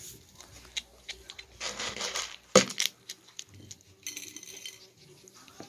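A young skunk eating dry cat kibble from a plate: scattered clicks and rattles of kibble against the plate, the loudest a sharp knock about two and a half seconds in.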